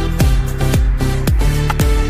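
Background music: an electronic dance track with a steady kick-drum beat, about two beats a second, over held bass notes.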